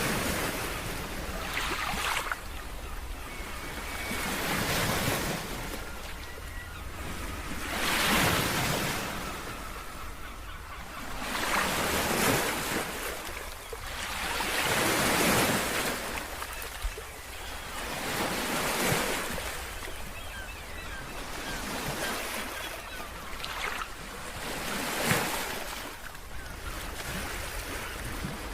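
Sea waves breaking and washing up on the shore, the surf swelling and falling back every two to four seconds, with steady wind.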